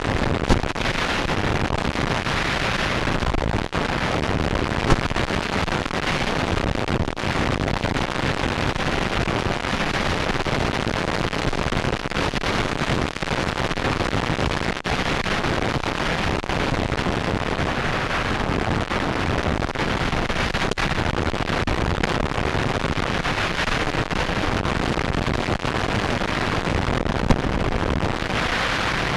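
Steady rushing noise on an FPV onboard camera's microphone, wind and motion noise without a clear motor tone, with a few short pops.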